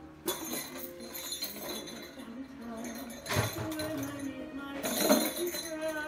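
Music with jingling bells, with two louder moments about three and five seconds in.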